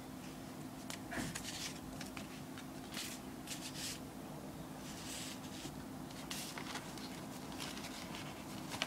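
Soft, scattered rustles of paper Priority Mail label stickers being handled, over a steady low hum.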